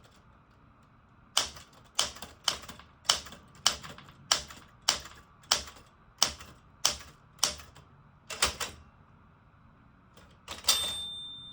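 1981 Smith Corona Galaxie manual typewriter typing one key at a time in a steady rhythm, about a dozen sharp strikes. Near the end a louder clatter comes, then the margin bell rings, marking the end of the line.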